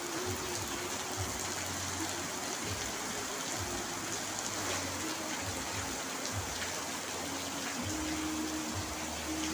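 Heavy rain falling steadily on an asbestos-cement roof, an even hiss of countless drops. A faint low hum comes and goes underneath.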